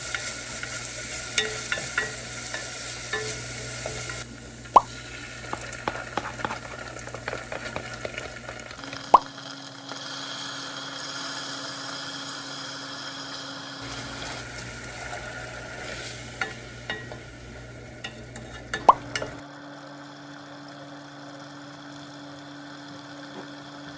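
Food sizzling in a pan while being stirred, with a few sharp clicks of a utensil against the pan. The steady sizzle changes abruptly several times.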